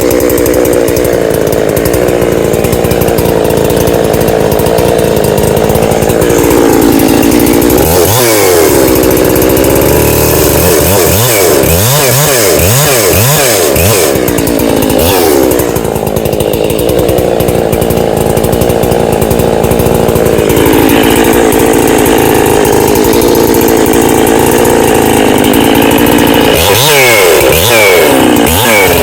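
Ported Husqvarna 365 Special two-stroke chainsaw (pop-up piston, base gasket deleted) running at high revs while cutting small pieces of wood during a gentle warm-up. The revs drop and climb again several times, a cluster of them in the middle and more near the end.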